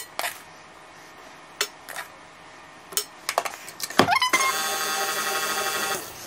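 A KitchenAid tilt-head stand mixer handled with a few sharp clicks and knocks, then about four seconds in its motor starts with a rising whine and runs steadily with the wire whisk for about two seconds before cutting off: a short burst on the stir speed to fold flour into sponge cake batter.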